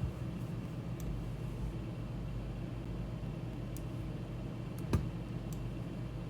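Steady low hum of room and microphone noise, with a few faint clicks and one sharper knock about five seconds in.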